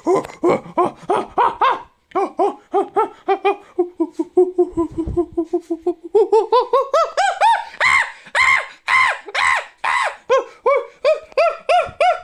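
Sound-effect vocalization of an Australopithecus africanus: a rapid string of short, pitched hooting calls, about four to six a second, each call rising and falling. The string runs low and even at first, then climbs in pitch and grows louder in the second half, like excited chattering laughter.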